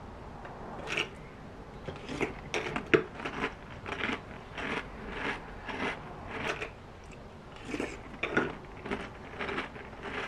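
Crunchy chocolate cereal in milk being chewed: a run of crunching bites about one to two a second, with a short pause about seven seconds in.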